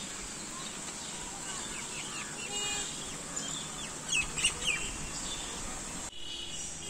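Birds chirping: short calls come and go, loudest a little past the middle, over a steady high-pitched hiss.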